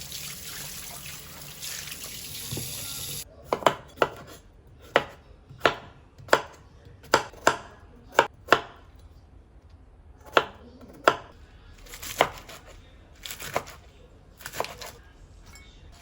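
A tap runs for about the first three seconds and cuts off. Then a knife chops on a cutting board in about fifteen sharp, unevenly spaced strokes, one or two a second.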